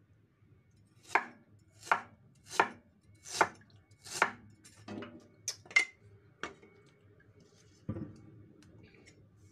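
Chinese cleaver slicing a peeled knob of ginger on a thick wooden chopping block: about nine chops, slow and evenly spaced, each knocking on the wood. A duller thump follows near the end.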